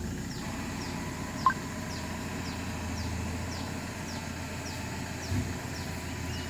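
Toyota Hilux pickup's engine running low and steady, with a short sharp blip about a second and a half in. A high, falling chirp repeats about twice a second over it.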